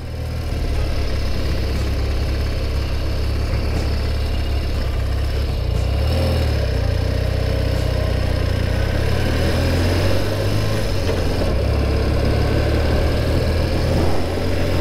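BMW R65's air-cooled flat-twin boxer engine running steadily while the motorcycle is ridden along at low speed. The engine note wavers briefly about six seconds in.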